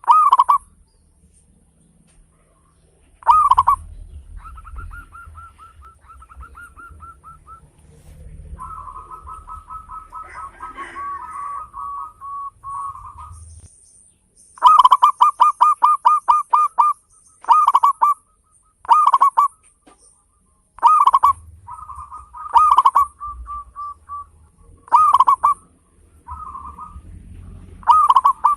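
Zebra dove (perkutut) cooing: loud staccato coo notes, a quick run of about ten notes in a row about halfway through, and softer rapid trilled rattles between phrases.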